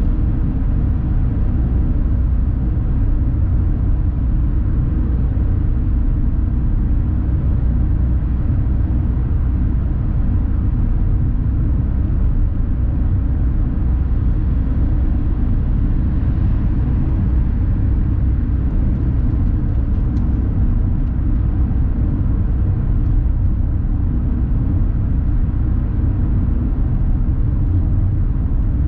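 Steady low rumble inside the cabin of a 2020 Toyota Aygo cruising at a constant highway speed of about 85 km/h: tyre, wind and engine noise from its 1.0-litre three-cylinder petrol engine, holding an even level.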